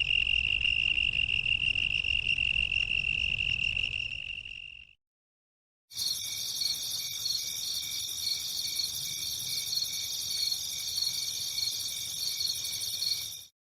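Insects trilling: one steady high-pitched trill for about five seconds that fades out, then after a second of silence a denser chorus of several high trills with a fast pulsing beat, cut off suddenly near the end.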